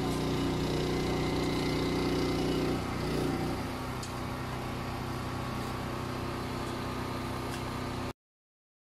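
Truck engine idling steadily, easing slightly in level about three seconds in, then cutting off suddenly near the end.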